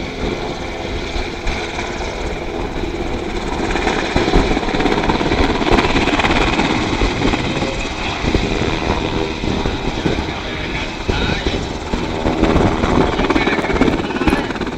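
Sikorsky UH-60 Black Hawk helicopter running, its rotor and turbine engines making a loud, steady beating noise that grows a little louder about four seconds in.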